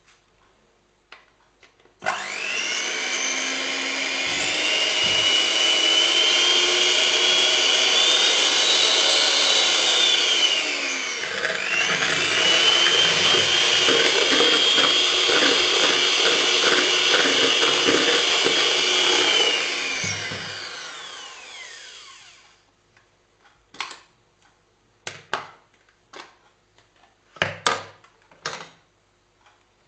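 BESTEK 300 W electric hand mixer's motor switching on abruptly and running with a steady high whine. About halfway through, its pitch drops and climbs back up, then it runs on and slows to a stop over a couple of seconds. A few sharp clicks and knocks follow near the end.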